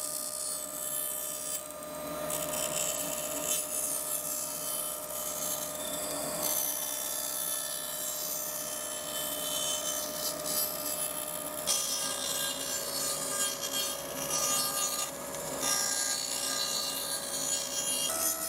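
Laguna 1412 bandsaw running with a steady hum while its blade cuts a circle through a plywood board on a pivoting circle-cutting jig, the wood hissing and rubbing against the blade. The hum shifts slightly lower in pitch about two-thirds of the way through.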